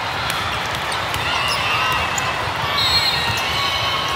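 Indoor volleyball court sounds: sneakers squeaking on the floor and the ball thudding, over steady background chatter in the gym.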